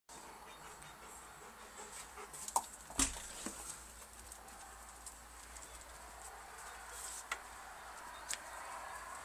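Faint scattered taps and scuffs of footsteps and dogs' paws on concrete steps, with a few sharp clicks, the loudest two about two and a half and three seconds in, over a light steady hiss.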